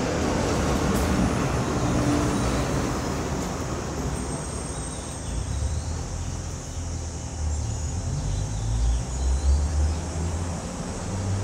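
Street traffic: a vehicle going by in the first few seconds, then an uneven low rumble in the second half.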